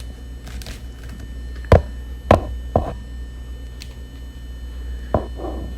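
Four short, sharp knocks over a steady low hum.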